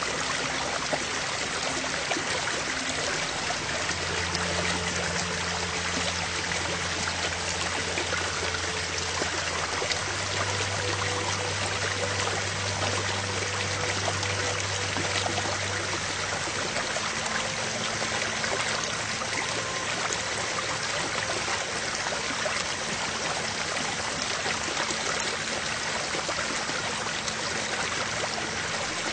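Ambient background music with a steady sound of a flowing stream, under soft held low notes that change every few seconds.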